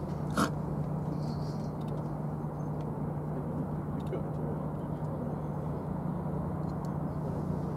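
Steady low hum and rumble of distant machinery and traffic across the docks, with one short sharp click about half a second in.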